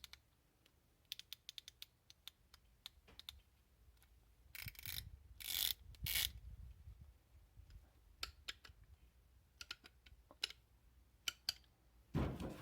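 Hand ratchet clicking as it is worked: short sharp pawl clicks, singly and in quick runs, with a few louder handling knocks and rustles in the middle.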